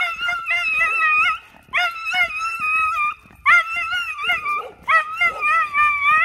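Miniature schnauzer screaming: four long, high-pitched cries with a wavering pitch, each about a second and a half, separated by short pauses.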